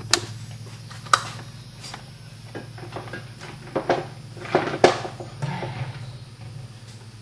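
Scattered clicks and knocks of objects being handled and set down, a dozen or so, the sharpest near the start, about a second in, and near five seconds, over a steady low hum.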